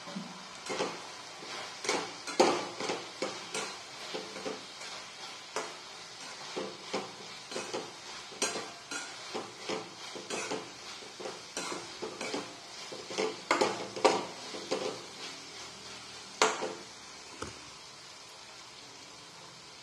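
Metal spatula stirring and scraping chopped gourd and moong dal around a metal kadhai, in irregular strokes about two a second over a low steady hiss. The stirring stops about 17 seconds in.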